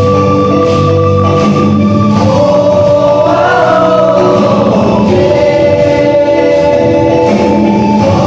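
School choir singing in harmony, holding long chords whose notes shift partway through.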